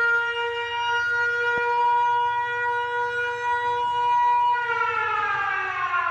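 Siren holding one steady tone, then winding down, its pitch falling steadily from about four and a half seconds in.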